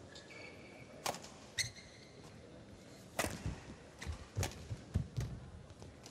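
Badminton rally: sharp smacks of rackets striking the shuttlecock, about five in a few seconds, with dull thuds of the players' footwork on the court in the second half.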